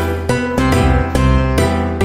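Background music of plucked, guitar-like notes in a steady rhythm, each note starting sharply and fading.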